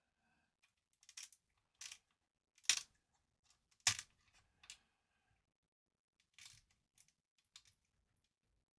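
A series of short scrapes and clicks from a tool levering the 68008 CPU out of its IC socket on the circuit board. There are about eight separate strokes, and the two loudest come near the middle.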